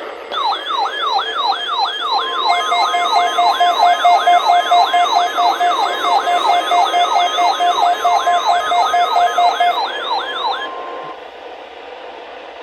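Several NOAA weather radio receivers going off at once for the weekly warning alarm test. One sounds a siren-like alert of falling sweeps, about three a second. A couple of seconds in, a rapid beeping joins it, along with the steady 1050 Hz warning alarm tone. All of it stops shortly before the end.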